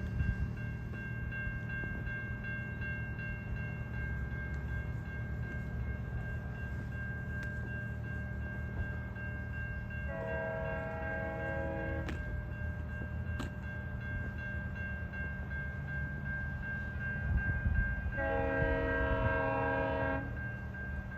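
GO Transit commuter train's diesel locomotive rumbling as it approaches, over a steady high-pitched whine. The train horn sounds twice, two chord blasts of about two seconds each, roughly ten and eighteen seconds in.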